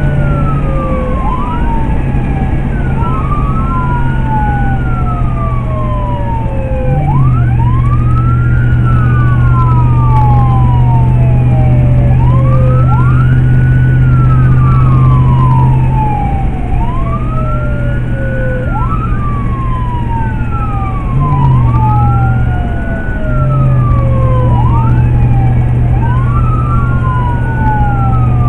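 Emergency vehicle's electronic siren on wail, a slow rise and fall repeating about every three seconds, with overlapping sweeps. A steady low hum runs underneath.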